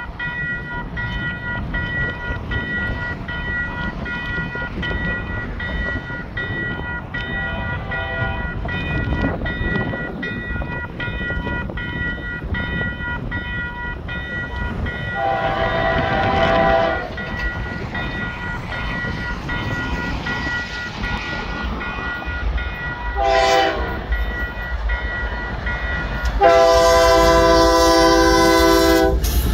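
Freight locomotive horn on an approaching CPKC train (lead unit a GE AC44CW) blowing the grade-crossing pattern: a faint long blast, a second long blast, a short one, then a final loud long blast. The diesel engines' rumble grows near the end as the train nears.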